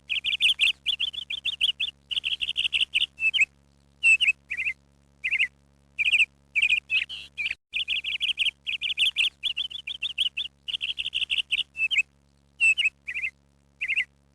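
A small bird chirping in quick trilled phrases, one after another with short pauses between them, over a faint steady hum.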